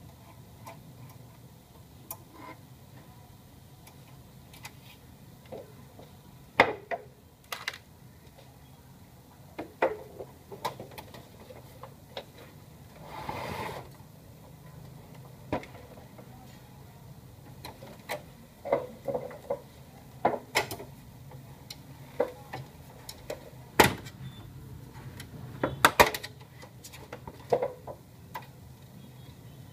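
Irregular plastic clicks, knocks and rattles of a laser printer's housing and internal parts being handled and taken apart by hand, with one longer scrape near the middle, over a steady low hum.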